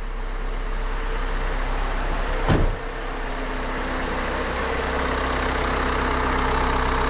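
Fiat Doblo 1.6 Multijet diesel engine idling steadily without pulsing, a sign that the new EGR valve gasket has cured its rough cold idle. A single knock sounds about two and a half seconds in.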